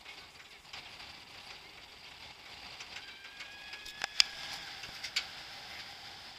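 Roller coaster train climbing the chain lift hill, with faint mechanical clicking from the lift. Partway through, two sharp, louder clicks about a second apart come as the train tips over the crest.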